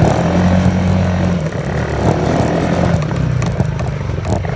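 Engine of a Polaris off-road vehicle running at a steady speed, dipping for a moment about a second and a half in, with scattered knocks and rattles near the end.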